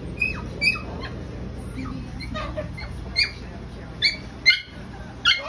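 A small dog giving short, high-pitched excited yips, each one sliding down in pitch, about a dozen in irregular succession, the loudest ones in the second half.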